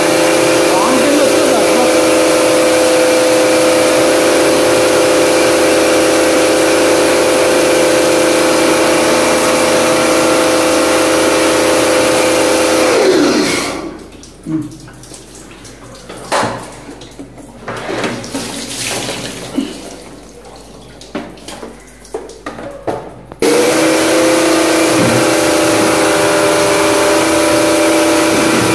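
Bosch electric pressure washer running, its motor humming steadily under the hiss of the water jet. About thirteen seconds in, the motor winds down and stops as the trigger is released, leaving a few light clicks and knocks. About ten seconds later it starts again abruptly and runs on.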